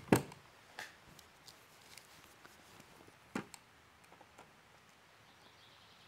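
Small sharp clicks from handling the X2 trail camera while taking its micro SD card out: a loud click at the start, a faint one a moment later, and a pair of clicks a little past three seconds in.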